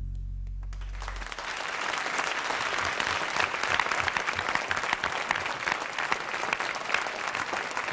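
The accompaniment's last low held chord dies away, and about a second in a studio audience breaks into applause, which builds and then holds steady.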